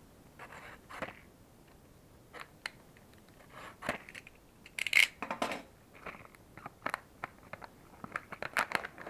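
A utility knife cutting a paper-backed plastic blister pack, and hands handling the packaging: scattered crinkles, scrapes and sharp clicks. The loudest bunch comes about five seconds in, and there is a quick run of clicks near the end.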